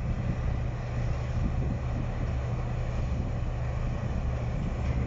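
Diesel engine of a Komatsu pipelayer running at a steady speed, a low drone.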